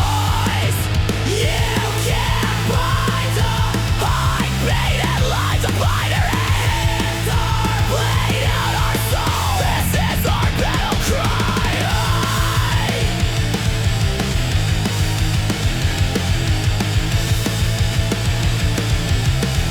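Dark electronic-industrial music with a heavy, steady low end. A wavering, pitch-bending lead line sits over it for roughly the first two-thirds and then drops out, leaving the backing.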